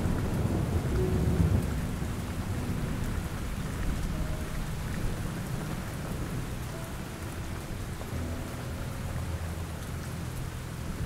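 Steady rain with a low thunder rumble that dies away over the first couple of seconds.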